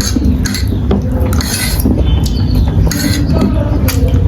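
Eating sounds close to the microphone: utensils clinking and scraping against a dish while instant noodles are eaten, in a run of short, sharp clicks and brief rustling bursts.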